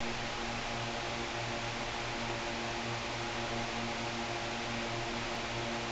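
Steady workshop background noise: an even hiss under a low electrical hum with several overtones, unchanging throughout.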